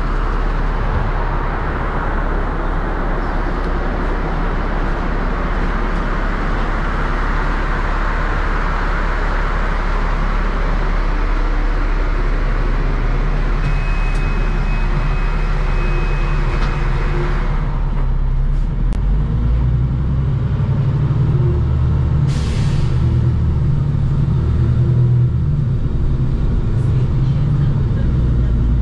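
Inside a NEFAZ 5299 city bus at a stop: the engine idles under street noise coming in through the open doors, with a steady high beep for about three seconds around the middle, then the outside noise cuts off suddenly as the doors shut. A short sharp air hiss follows a few seconds later, and the engine's low drone grows as the bus pulls away.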